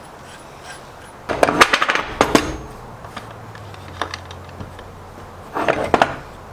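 Two bursts of rapid knocking and clattering of hard objects, the first about a second long, the second shorter near the end, with a faint low hum between them.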